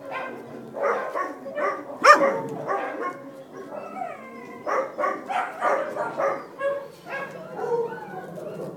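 Dachshund puppies yapping and whining as they play-fight: a string of short, high-pitched calls, several falling in pitch, the loudest about two seconds in.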